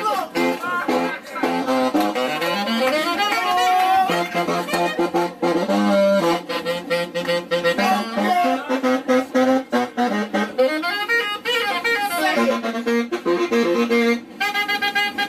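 Solo saxophone playing a fast jazz improvisation: quick runs of short notes, with sliding climbs and falls in pitch, and a few high, bright notes near the end.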